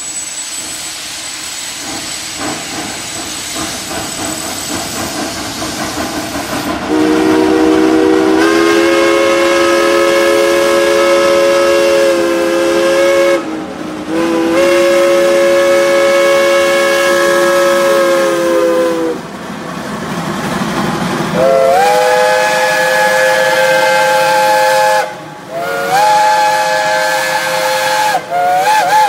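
Geared logging steam locomotives hissing steam, then steam whistles sounding chords in long blasts: two long blasts, then a higher-pitched whistle blowing three shorter blasts near the end, each sliding up in pitch as it opens.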